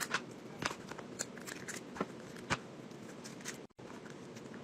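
Rubber balloon being stretched and stuffed with modeling clay by hand, giving irregular sharp clicks and crackles over a low background. A brief dropout near the end looks like an edit cut.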